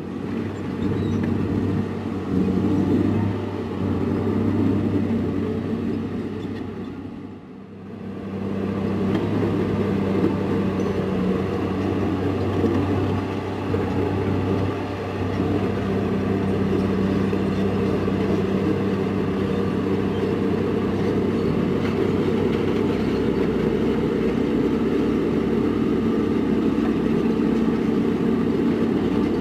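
Heavy diesel engine of construction machinery running steadily, with a brief dip in loudness about seven seconds in.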